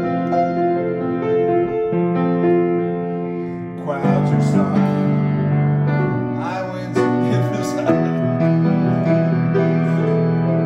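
Kohler & Campbell grand piano playing sustained chords that change every couple of seconds, with a man's voice singing along at times.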